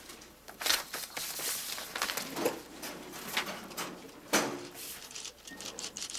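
Scattered rustles and light knocks of papers and objects being handled at an office desk, in an irregular run of short strokes.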